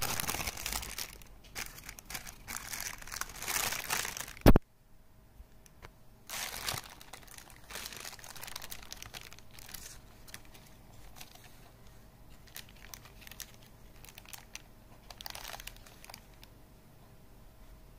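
McDonald's paper burger wrapper crinkling and rustling as it is unfolded, dense and loud for the first four seconds or so. A single sharp click comes about four and a half seconds in, then softer, scattered rustles follow.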